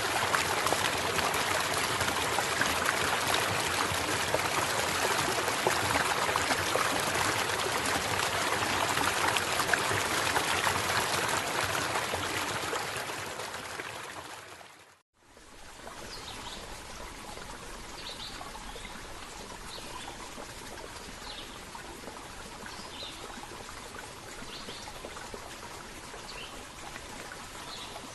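Running stream water, a dense steady rush that fades out about halfway through. After a short dip it gives way to a quieter steady water sound with scattered short, high chirps.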